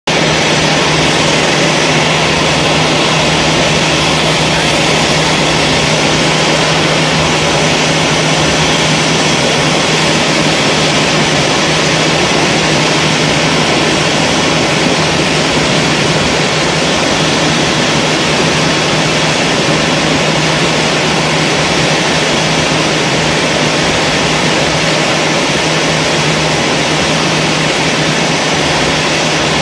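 Steady, loud mechanical drone with a constant low hum under a hiss, from aircraft or ground machinery running on the airport apron.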